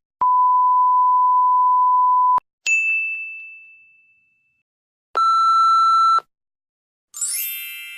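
A string of separate stock sound effects: a steady censor bleep at about 1 kHz lasting about two seconds, then a single bright ding that fades out, then a one-second buzzy beep, and near the end a shimmering chime that rings on.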